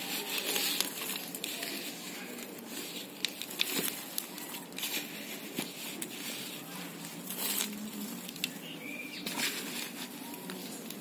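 A hand mixing dry leaves, banana peels and garden soil in a pot: continuous irregular rustling with scattered small crackles and clicks.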